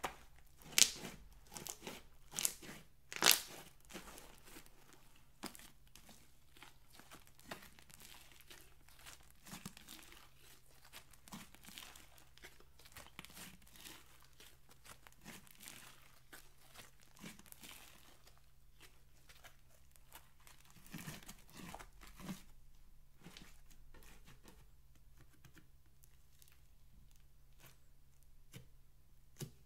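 Hands stretching, folding and pressing glitter slime: a run of sticky crackles and small pops. There are a few sharp snaps in the first few seconds and a denser cluster about two-thirds through.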